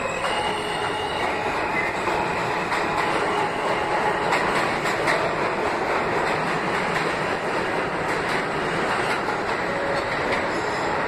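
New York City subway train moving past the platform at close range: a steady rumble of wheels on rail with scattered clicks.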